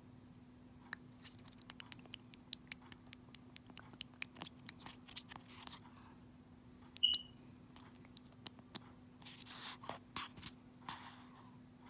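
African grey parrot eating baby food from a squeeze-pouch spout: irregular wet clicks and smacks of its beak and tongue, with a few longer slurping smears near the end. A brief high squeak about seven seconds in is the loudest sound.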